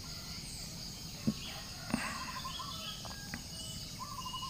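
A steady high drone of insects with birds chirping short repeated trills. Two sharp clicks a little after one second and about two seconds in are the loudest sounds.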